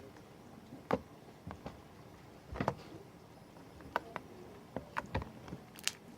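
Homemade slime being squeezed and stretched by hand, giving an irregular run of short pops and clicks, about ten of them.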